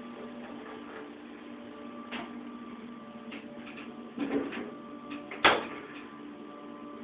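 Steady hum of a 1970 Dover hydraulic elevator's pump motor as the car rises, with several fixed tones in it. A few clicks come through the middle, and one sharp, louder click about five and a half seconds in.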